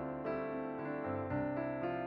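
Background piano music, with chords and notes changing about every half second.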